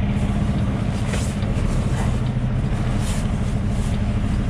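Semi truck's diesel engine running at low speed while the rig is slowly manoeuvred in reverse, a steady low drone heard from inside the cab.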